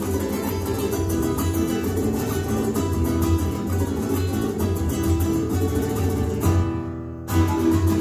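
Andean folk ensemble playing live: strummed plucked string instruments over drums. The music thins out briefly about a second before the end, then comes back in full.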